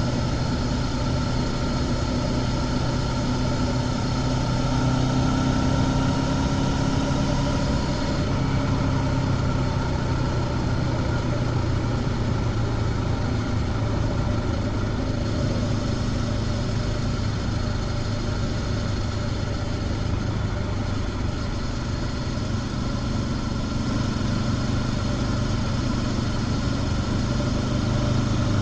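Honda CB500X's parallel-twin engine with stock exhaust running steadily at road speed under a constant rush of wind and road noise. Its pitch shifts slightly about eight seconds in.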